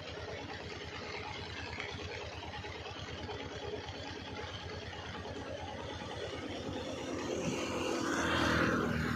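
A vehicle engine running steadily, growing louder and peaking about eight and a half seconds in as a vehicle passes close by, then easing off.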